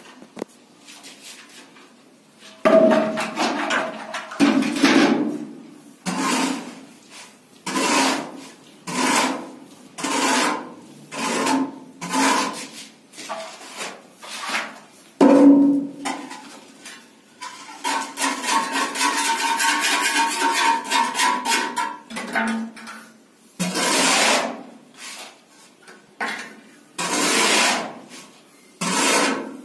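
Rough scraping and rubbing strokes against a cement-plastered wall, about one a second, with one longer continuous scrape a little past the middle.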